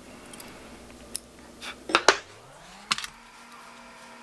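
Small fine-pointed fly-tying scissors snipping stray hackle fibers on a tied fly: several short, sharp snips, the loudest a quick pair about two seconds in and another pair about three seconds in.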